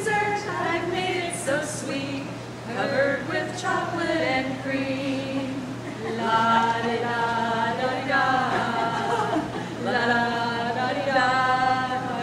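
Three women singing together a cappella from lyric sheets, with no instruments; the notes grow longer and are held in chords in the second half.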